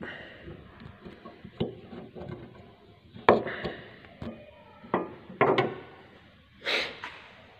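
Small car parts being handled and worked loose by hand: a string of sharp clicks and knocks, some close together, then a brief rustle near the end.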